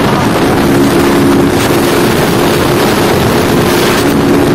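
Honda motorcycle engine running hard and steady at highway speed, around 130–140 km/h, with a constant drone under heavy wind rush on the microphone.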